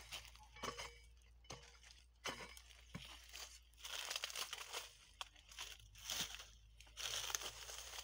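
Dry corn leaves and stalks rustling and crunching as someone walks through a dried cornfield. The sound comes in irregular bursts with light clicks, loudest twice, about halfway through and near the end.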